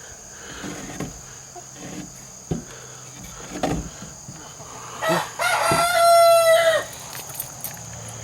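Australorp rooster crowing once, a single drawn-out crow that starts about five seconds in and breaks off after nearly two seconds. A steady high insect drone runs underneath, with a few soft knocks before the crow.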